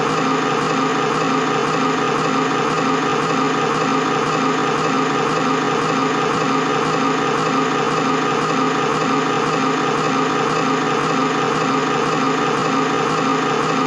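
Old film projector running on after the film has finished, its motor and mechanism whirring steadily while the full reel keeps spinning.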